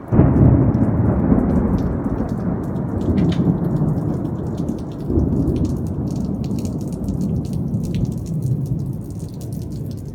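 Thunder: a sharp crack right at the start rolls into a long low rumble that slowly fades, then swells again about five seconds in. Raindrops tick lightly throughout.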